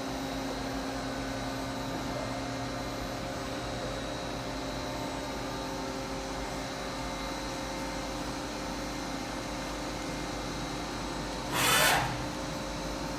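Steady hum of a powered-up Doosan Lynx 300 CNC turning center idling, with several constant tones. A short, loud rush of noise comes near the end.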